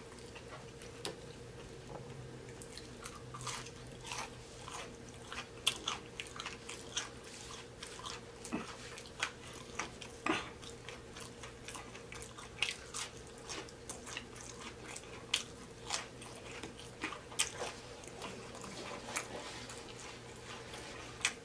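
Close-up chewing and crunching of crisp fried seafood batter: a run of irregular small crunches and mouth sounds, over a faint steady hum.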